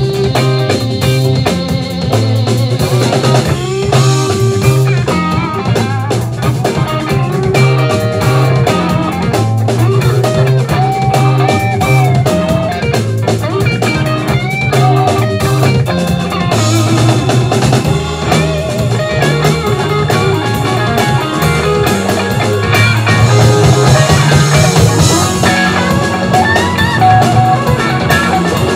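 Live funk band playing an instrumental passage: electric guitar over a drum kit, bass line and keyboards, continuous and loud.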